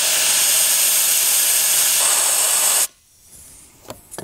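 Air hissing loudly out of a 4WD's off-road tyre through a hose-type deflator on the valve stem, letting the tyre down to about 20 PSI. The hiss cuts off suddenly about three seconds in, followed by a couple of faint clicks.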